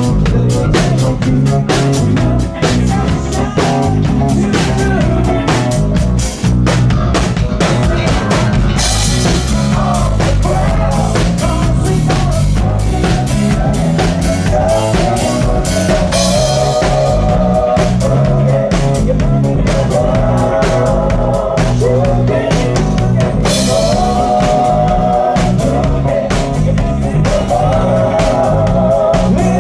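Live rock band playing loudly: a steady drum kit beat with bass drum and snare under amplified instruments, with cymbal crashes a few times.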